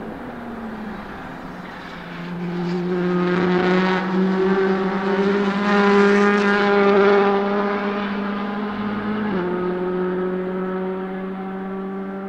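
Honda Civic WTCC TC1 race car's 1.6-litre turbocharged four-cylinder engine at high revs as the car comes up and passes at speed, loudest about six seconds in and then fading as it pulls away. Its pitch drops suddenly once, about nine seconds in.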